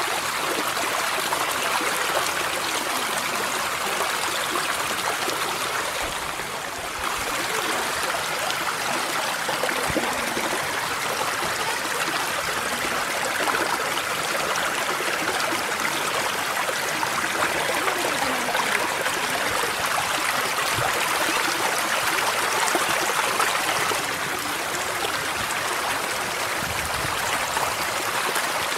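Kościeliski Potok, a Tatra mountain stream, rushing and splashing over boulders: a steady wash of water noise, briefly quieter about six seconds in.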